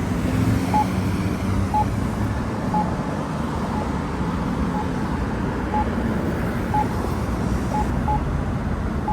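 Campbell Pedsafety accessible pedestrian signal button sounding its locator tone, a short beep about once a second while the signal is on wait. Steady traffic noise from the intersection runs underneath.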